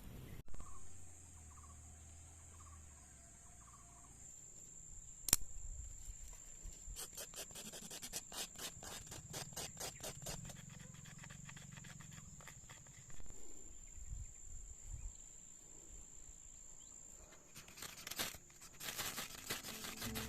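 Insects trilling steadily on one high pitch, with a single sharp click about five seconds in and spells of rapid clicking in the middle and near the end.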